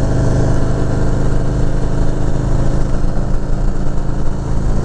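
Harley-Davidson Road King's V-twin engine running steadily at an even, unchanging speed.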